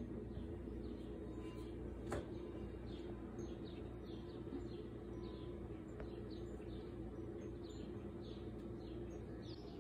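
A small bird chirping steadily, short falling chirps about twice a second, over a steady low hum; a single sharp click about two seconds in.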